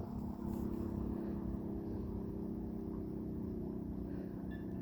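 A motor vehicle's engine running steadily at idle, an even low hum with a low rumble under it.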